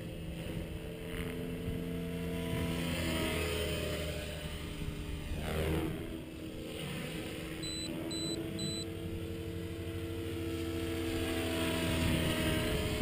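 Align T-Rex 550E electric RC helicopter in flight: a steady whine from its Kontronik motor and spinning rotor, its pitch shifting a little as head speed changes. The sound swells and sweeps about six seconds in as the helicopter passes close.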